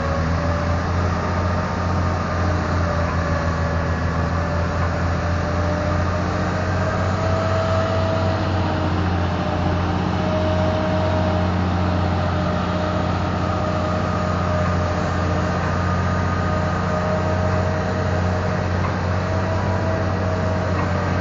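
Diesel power pack of a self-propelled Goldhofer heavy-haul transporter running steadily at constant speed, a deep even hum, with a higher whine over it that wavers slowly in pitch.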